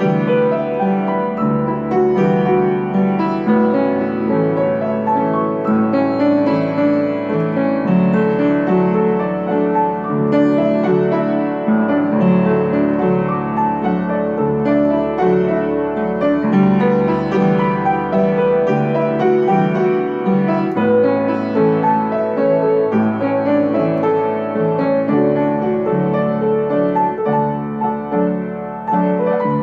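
Upright piano played solo: a simple ballad tune over chords, played without a break.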